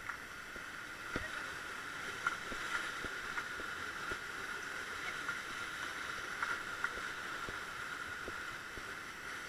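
River water rushing steadily around an inflatable raft in a rapid, with scattered short knocks and splashes against the raft.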